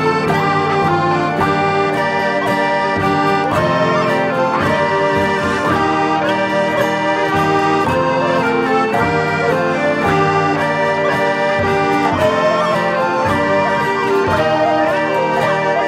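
Folk metal music: a dense passage of several held melodic lines over a steady percussive beat, at an even, loud level.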